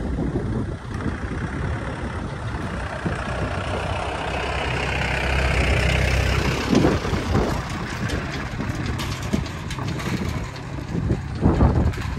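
An engine running steadily with a low rumble. It grows louder to a peak around the middle, then eases back, and there are a few sharp knocks near the end.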